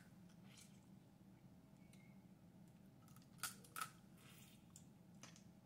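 Snow crab leg shell cracking as it is broken open by hand: two sharp cracks close together a little past three seconds in, with a few fainter clicks around them against near silence.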